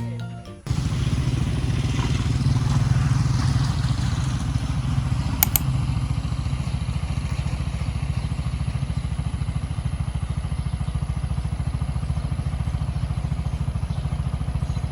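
A small engine running steadily at low speed, a rapid even pulsing, starting abruptly about a second in. A single short click sounds about halfway through.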